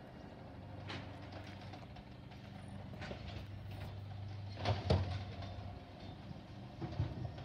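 Garbage truck's diesel engine running steadily some way off, with two louder bangs, one about five seconds in and one near the end.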